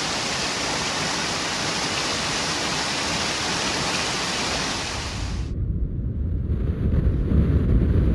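Steady loud rushing noise. About five and a half seconds in it cuts off abruptly and gives way to a low, gusting rumble of wind buffeting the microphone.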